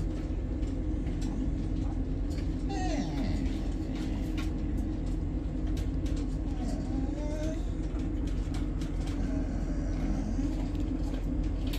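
A dog whining in a few short, high whimpers that slide up and down in pitch, over a steady low hum. The whining is the stress of a dog that wants to eat but is holding back from its food.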